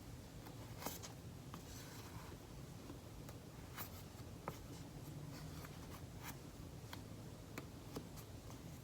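Light scratching and scattered clicks of hands working yarn strands on a friendship-bracelet loom, over the faint steady hum of an air conditioner.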